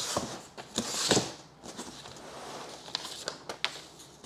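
Cardboard shipping box being opened by hand: the flaps scrape and rustle as they are folded back, mostly in the first second or so, followed by a few scattered light taps and clicks of cardboard.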